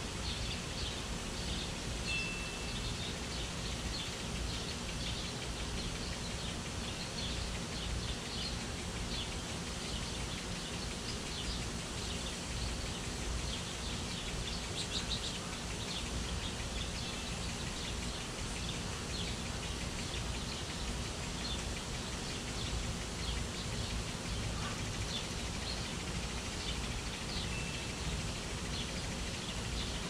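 A flock of small birds chirping continuously, with many short overlapping chirps, over a steady background hiss and low rumble. A brief clear whistled note comes once near the start and again near the end.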